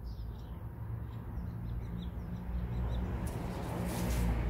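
Small birds chirping faintly over a steady low rumble; about three seconds in, a louder rustling hiss rises and grows toward the end.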